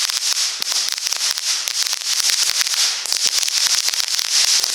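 Ground fountain firework burning, a steady high hiss with dense, rapid crackling throughout.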